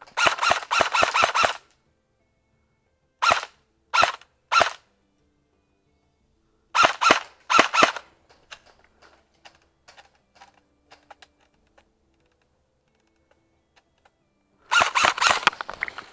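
Airsoft gun firing: a rapid string of shots at the start, then three single shots, two more a few seconds later, and another rapid string near the end.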